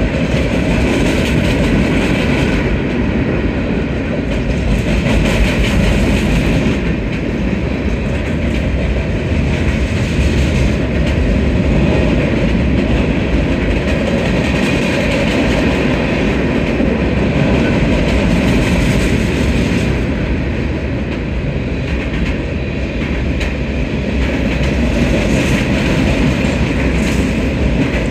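Norfolk Southern freight train's cars, covered hoppers and a gondola, rolling past at steady speed: a loud, continuous noise of steel wheels running on the rails.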